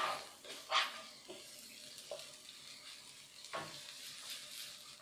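Wooden spatula scraping and stirring sliced spring onions and shallots in a non-stick frying pan, a few separate strokes with the loudest about a second in, over a light sizzle of the vegetables frying in oil.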